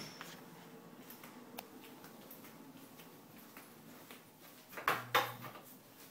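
Two sharp knocks about five seconds in, as a door is opened into a small bathroom, with faint light ticks of movement on a hard floor before them.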